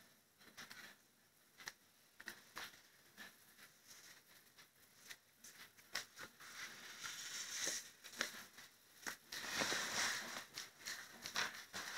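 Faint scratching and light tapping of a wax crayon drawing on paper. Near the end comes a louder rustle of the paper sheet being slid and handled.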